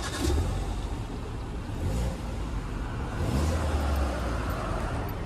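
A Suzuki car's engine running, heard from inside the cabin. It is revved up twice, rising in pitch about two and three seconds in.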